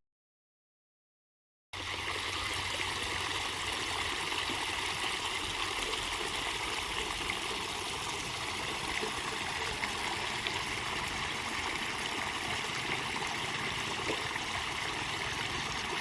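Steady rushing noise, like a stream of running water, that starts suddenly after a second and a half or so of silence and holds an even level.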